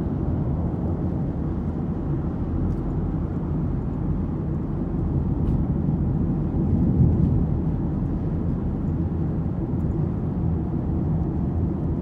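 Steady low rumble of a car's road and engine noise heard from inside the moving car's cabin, swelling slightly about seven seconds in.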